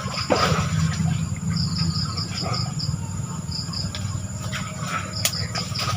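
Insects chirping in quick repeated groups over a constant high-pitched buzz, with a low hum underneath. There is a single sharp click near the end.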